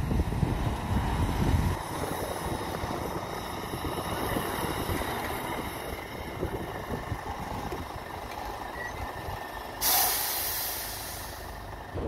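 Four-axle dump truck's diesel engine running as the loaded truck manoeuvres, louder for the first two seconds. About ten seconds in, a sudden loud hiss of the air brakes, fading over about two seconds.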